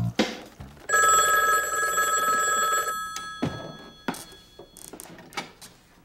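A telephone ringing once, about two seconds long, then fading out. A few short knocks follow.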